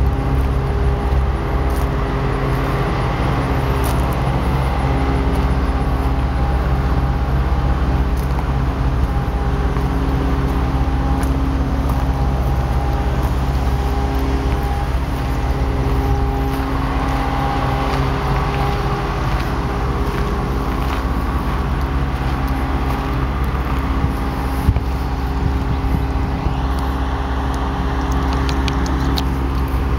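Large diesel engine idling with a steady low drone, a few faint clicks over it.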